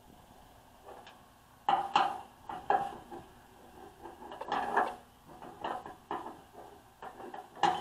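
A steel wrench clinking and clanking against the bolts and steel side plate of a flail mower in short, irregular bursts while the height-adjustment bolts are tightened.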